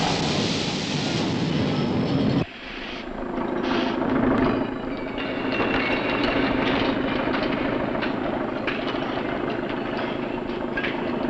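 Loud clattering machinery din that cuts off sharply about two and a half seconds in. It gives way to a steadier mechanical running sound with a low hum and scattered clanks.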